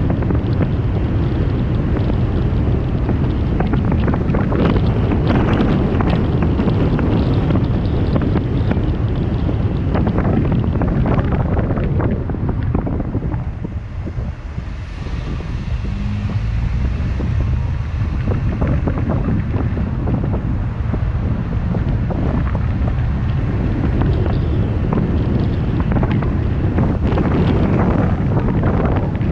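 Wind buffeting the microphone of a camera on a moving car, with steady low road rumble. The noise eases for a few seconds around the middle, then builds again.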